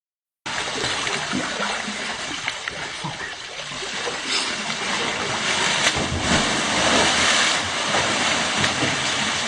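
Steady rush of water pouring down a rock waterslide falls into a pool, growing louder about six seconds in.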